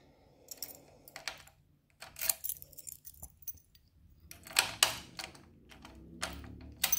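Sharp clicks, a handful irregularly spaced, from the plastic switches on a Kawasaki Ninja 500R's left handlebar being worked, with light jangling of keys.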